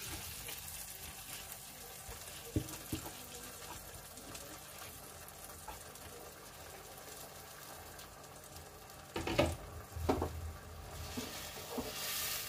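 Pot of turmeric water and soaked rice sizzling softly over the flame, a steady faint hiss. A few knocks come about nine to ten seconds in, and near the end a wooden spatula begins stirring the rice.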